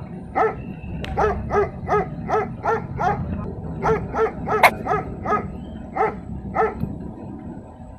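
A dog barking in a quick run of about sixteen short barks, two to three a second, which stops about a second before the end.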